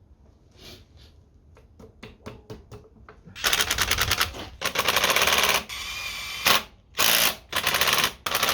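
Power impact wrench hammering in several bursts of about a second each, with a few light clicks before the first burst.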